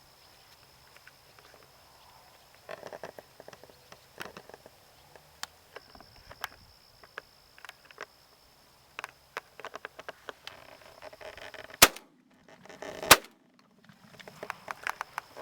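Two shotgun blasts about a second apart, near the end, after several seconds of light clicks and rustling.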